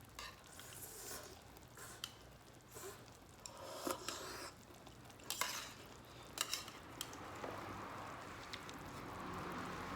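Utensils clinking and scraping against a metal mess tin of kimchi hot pot: scattered short clicks over the first seven seconds, then a steady hiss builds near the end.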